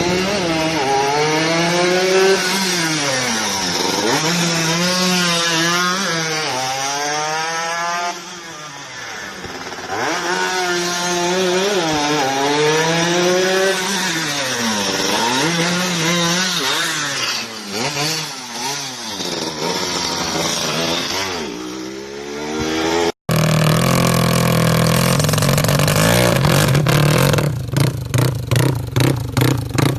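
Drag-racing motorcycle engines revving hard at full throttle, the pitch climbing and dropping again and again as the bikes shift up through the gears. After a sudden cut about 23 s in, an engine runs at a lower pitch, then revs in quick repeated blips near the end.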